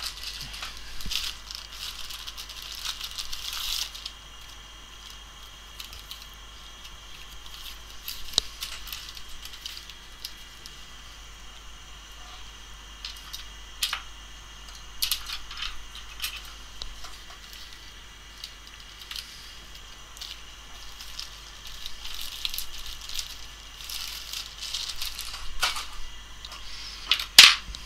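Small items and packaging being rummaged through and handled: intermittent rattling, rustling and light clicks, with a sharp click near the end.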